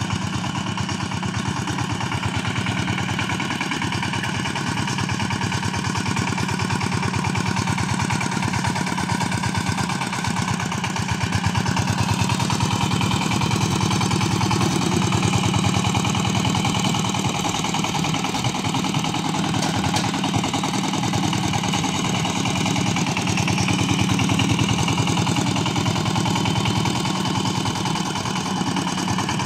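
Zubr walk-behind tractor's engine running steadily under load as it pulls a potato digger through the soil, not straining; it gets a little louder around the middle and again near the end.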